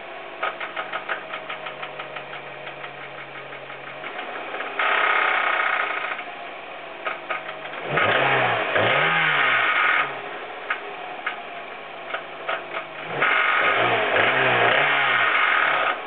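Hyundai Coupe engine knocking: a rapid, even knock at idle, then revved up three times with knocks between the revs. The knock comes from a distorted connecting rod.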